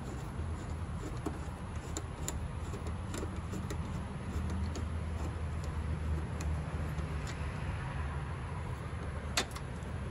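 A steady low hum, with a few light metallic clicks as a 7 mm socket driver works a hex-head headlight screw loose; one sharper click near the end.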